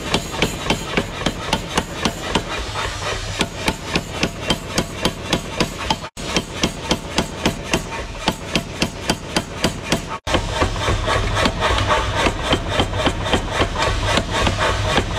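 Power hammer ram pounding red-hot steel on the die in a fast, even train of blows, about three to four a second. After about ten seconds a steady low hum runs under the blows.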